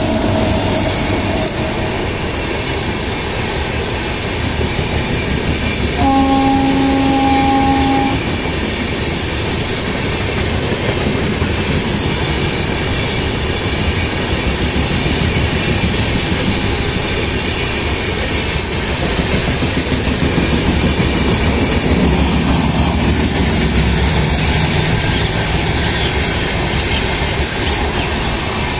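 An electric-hauled Humsafar Express passenger train running past at close range, with the steady noise of its wheels on the track. About six seconds in, a train horn sounds once for about two seconds.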